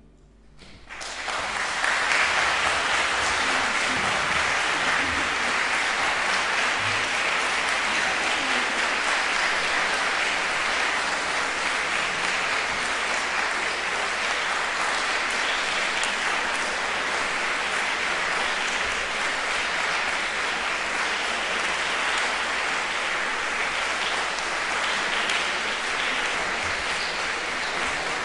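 Concert audience applauding: the clapping starts about a second in, swells quickly, then continues at a steady level.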